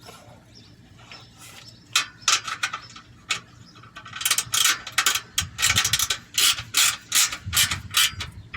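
Hand ratchet wrench clicking in quick runs as the heat shield bolts are tightened by feel. Faint at first, the clicking turns louder and busier from about two seconds in.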